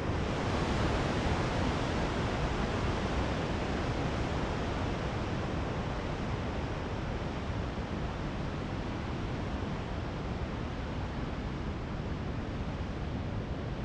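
Large waterfall heard from a little farther back: a steady rushing roar in which the deep low rumble dominates over the hissing whoosh.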